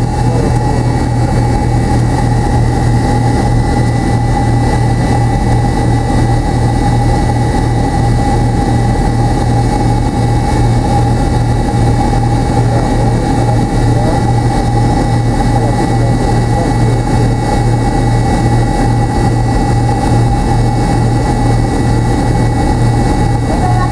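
Cabin noise inside a McDonnell Douglas MD-83 taxiing: its tail-mounted Pratt & Whitney JT8D-219 turbofans running steadily at low power. A level low drone with a thin steady whine on top.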